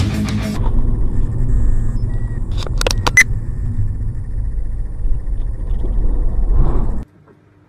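Dashcam recording from inside a moving car on an expressway: steady low road and engine rumble, with a quick cluster of three or four sharp knocks about three seconds in. The sound cuts off abruptly near the end. A moment of heavy-metal guitar music trails off at the very start.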